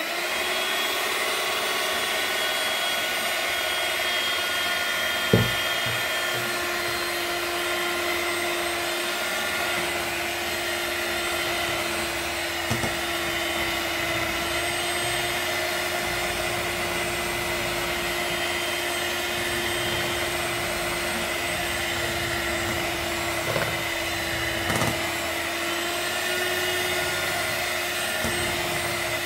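Electric hand mixer running steadily, its beaters whisking cake batter in a bowl, with a few short sharp knocks along the way.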